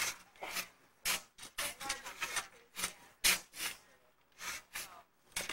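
Shovel blade scraping through sand and dirt in a quick series of short scrapes, roughly two a second.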